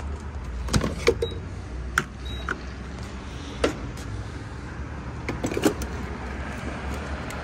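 Converted Ford Transit Connect van running with a steady low rumble, with scattered light clicks and knocks over it.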